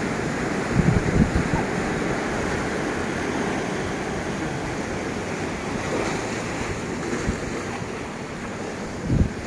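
Small surf washing up a sandy beach as a steady rush. Wind buffets the microphone with low rumbles about a second in and again near the end.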